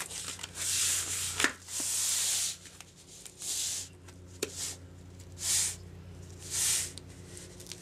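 Hands rubbing and sliding over the cardboard backing of a picture frame: a series of short scratchy swishes about a second apart, with a few light knocks.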